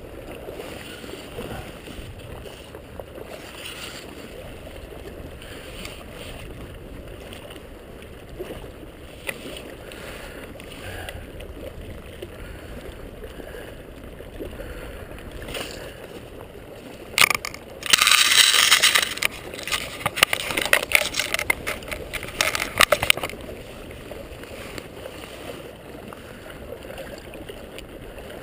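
River water sloshing and lapping steadily close to the microphone. About two-thirds through comes a loud stretch of close scraping and crackling handling noise that lasts a few seconds and trails off in scattered crackles.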